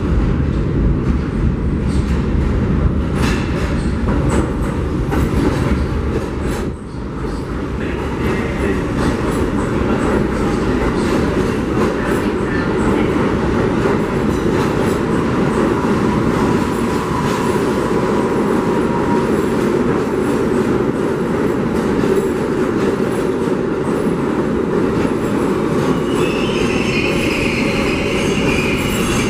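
R32 subway train pulling into an underground station and rumbling past, its wheels clacking over the rail joints. A high metallic squeal comes in near the end as the train slows to stop.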